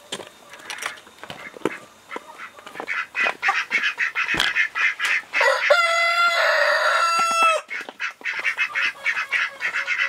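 A flock of chickens clucking, and a rooster crows once about halfway through, one long call of about two seconds.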